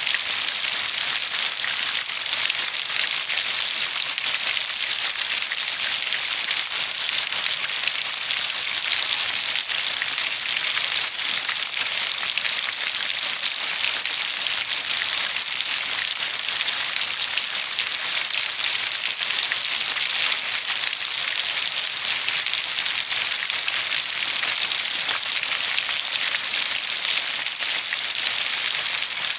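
Steady, even rainfall: a continuous hiss of dense raindrops, with no thunder or single loud drops standing out.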